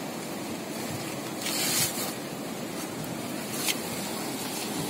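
Steady rushing of a fast-flowing, flooded river. A brief louder rustle comes about one and a half seconds in, and a sharp tick follows a couple of seconds later.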